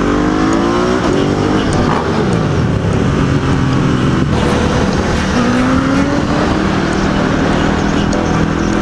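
Ducati 848 Evo's V-twin engine pulling hard under way, its pitch climbing in the first second, dropping at a gear change, then climbing again about five seconds in. Wind rushes steadily over the microphone.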